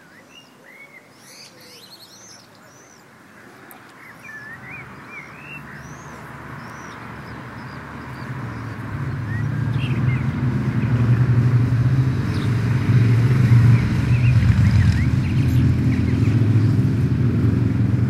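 Small birds chirping in short rising-and-falling calls. About halfway through, a low steady drone swells in and becomes the loudest sound.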